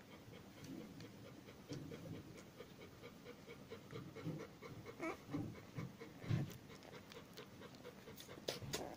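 Labrador panting softly in quick, even breaths.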